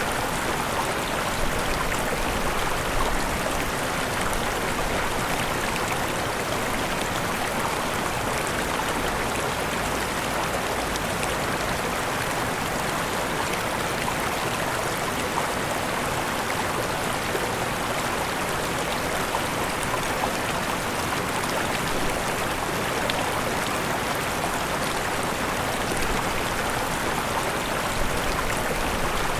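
Waterfall water falling and rushing in a steady, unbroken wash.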